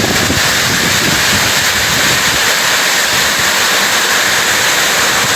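Strong storm wind rushing steadily and loudly.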